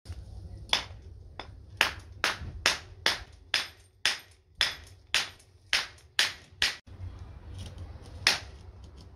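Wooden mallet knocking at a bicycle's seized quill stem to work it loose: a run of sharp knocks about two a second, then a pause and one more knock near the end.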